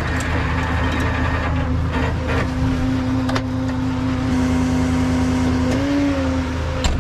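Tow truck's diesel engine running steadily, its pitch lifting briefly about six seconds in. A few sharp clicks and knocks cut through it.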